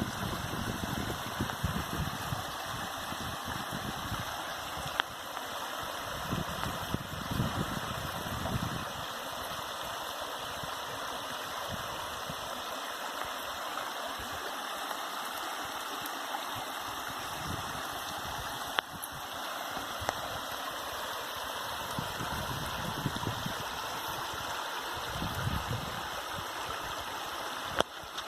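Stream water running, a steady rushing sound throughout, with soft low rumbles now and then and a few sharp clicks.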